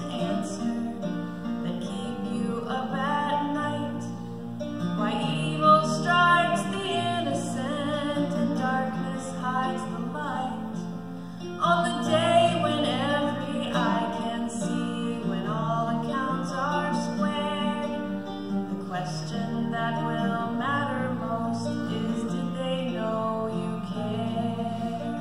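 A live song: singing, with a woman's voice leading, over acoustic guitar accompaniment.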